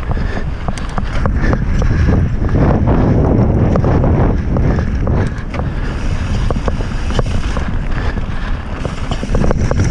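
Mountain bike riding fast downhill on a dirt and gravel trail: a steady low rumble of wind buffeting the microphone and tyres on loose ground, with frequent sharp clicks and rattles from the bike jolting over stones.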